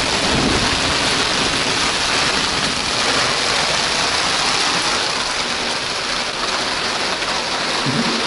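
Heavy rain pouring steadily, a dense, even hiss of falling water.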